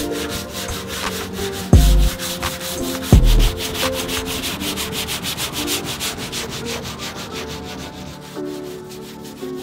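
Hand block sanding on the primed body panel of a 1969 Porsche 911: quick, rhythmic back-and-forth rasping strokes of sandpaper on a block, growing fainter in the last few seconds. Two deep thumps sound about two and three seconds in.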